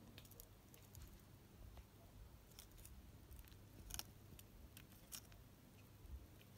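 Tortoise biting and tearing a lettuce leaf: faint, crisp snipping crunches at irregular intervals, the loudest about four seconds in.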